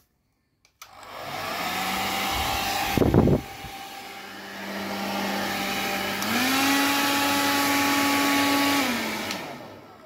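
Fakir hair dryer switched on: its fan motor spins up and runs steadily with rushing air, now working again after the repair. About six seconds in it is switched to the higher setting and its hum rises in pitch, then it is switched off and spins down near the end. A brief bump about three seconds in.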